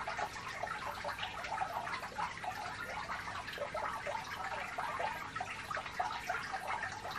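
Water trickling steadily, a dense irregular patter of small drips and splashes.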